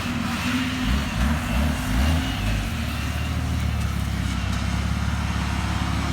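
Off-road 4x4 vehicle's engine running, with several short rises and falls in revs in the first two and a half seconds, then holding at a steady speed.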